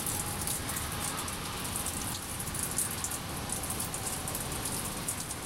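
Packaging being handled: a dense, continuous rustling and crackling.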